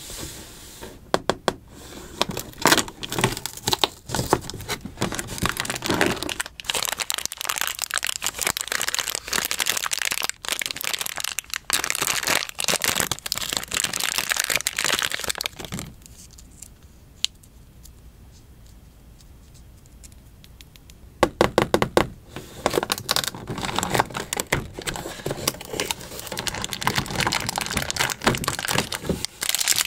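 Long fingernails clicking and tapping on a cardboard advent calendar, and a red plastic wrapper crinkling and crackling as it is handled and torn. The crinkling drops away for several seconds in the middle, then a run of sharp clicks starts it again.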